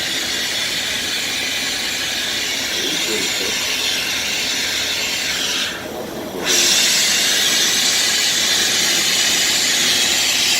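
Steady hiss from the gold-melting equipment, melting gold for casting. It drops out briefly about six seconds in, then comes back a little louder.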